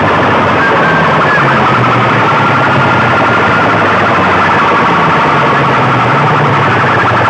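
Banks of horn loudspeakers blasting a loud, distorted siren-like electronic wail at full volume, its pitch shifting every second or so without a break.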